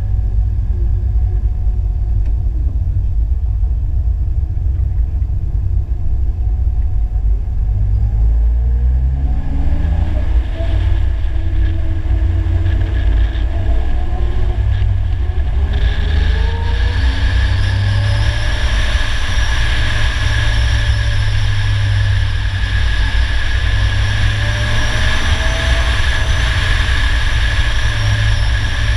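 Polaris Slingshot's engine pulling under acceleration, its note climbing in several rising sweeps about a third of the way in, over a steady heavy wind rumble on the hood-mounted microphone. From about halfway a louder hiss of wind and road noise joins as speed builds.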